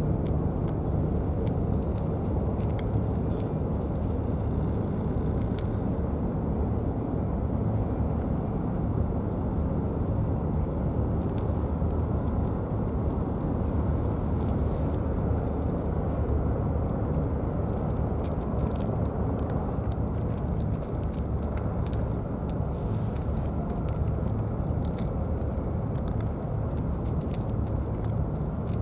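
A steady low rumble holds at an even level throughout, with faint scattered clicks over it.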